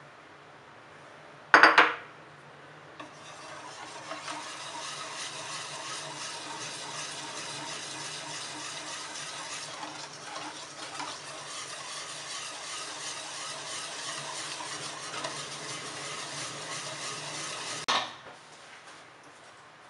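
Wire balloon whisk beating thin crepe batter in a stainless steel bowl: a steady, fast scraping rattle of the wires against the metal. A sharp clank comes about a second and a half in, and another as the whisking stops near the end.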